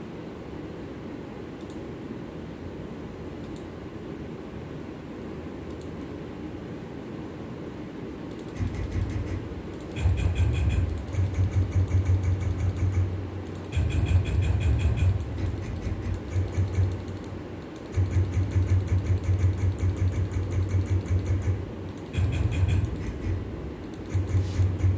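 CNC router running in bursts: over a steady background hum, a loud low buzz with a fast pulsing texture starts about eight seconds in, then stops and starts again several times, each run lasting one to four seconds.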